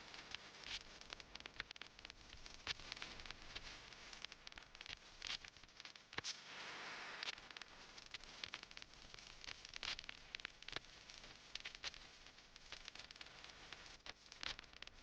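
Faint rustling with many scattered sharp clicks, and a brief stretch of hiss about halfway through.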